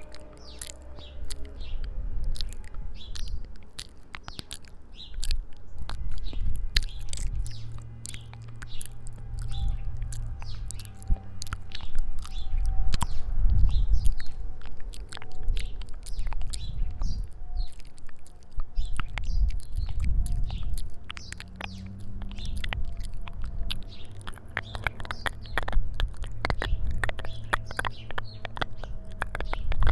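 Close-miked ASMR mouth sounds: wet lip and tongue clicks and smacks, coming thick and fast near the end. They sit over a low rumble of outdoor ambience, with birds chirping.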